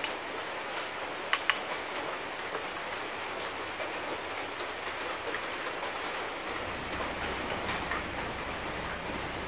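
A pot of noodles and vegetables simmering over soda-can alcohol stoves, giving a steady, even hiss. Two light clicks of metal tongs against the pot come about a second and a half in.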